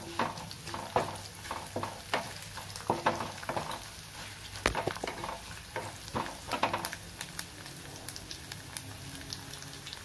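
Garlic cloves, fenugreek and ajwain seeds sizzling as they fry in hot sesame oil in a small metal kadai. A wooden spatula scrapes and stirs against the pan for about the first seven seconds, and after that the sizzle goes on alone.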